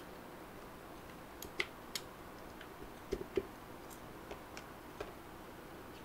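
Scattered sharp plastic clicks as keycaps, with their mechanical switches still attached, are pulled from a small acrylic macropad with a wire keycap puller and set down.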